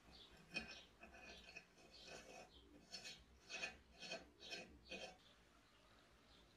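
A nut being screwed by hand onto the threaded valve body of a petrol blowtorch, with the valve spindle through it. It gives a series of faint metal-on-metal scraping strokes, about two a second near the end, that stop about five seconds in.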